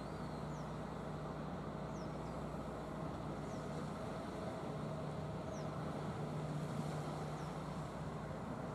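Hitachi ZX200 hydraulic excavator's diesel engine running steadily under load as it digs and swings a loaded bucket of river sediment, a constant low hum.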